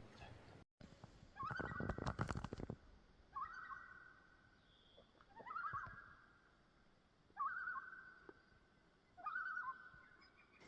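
An animal calling outdoors: one short, scooping pitched call about every two seconds, five in all, the first over a brief stretch of rustling noise.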